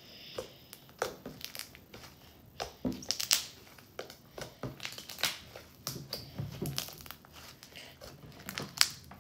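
Thick, stretchy homemade slime being squeezed and stretched by hand, giving irregular sticky clicks and pops.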